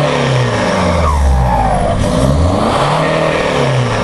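Ford Mondeo ST TDCi's turbodiesel engine blipped repeatedly through a straight-through side-exit exhaust, the revs rising and falling about every second and a half. A turbo whistle falls away as each rev drops.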